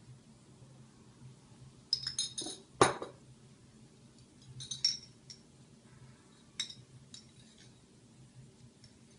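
Small bottles of food colouring and a glass baking dish being handled: a few scattered light clinks and taps, with one louder knock about three seconds in.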